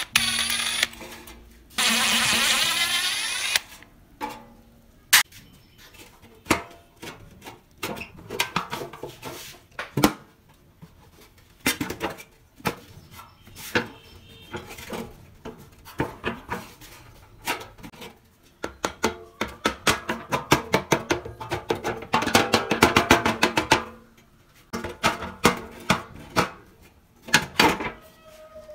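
Metal knocks and clinks of rusty drill press parts being handled as the head is stripped down, with a power tool running for about two seconds near the start and a dense run of rapid clicking about two-thirds of the way through.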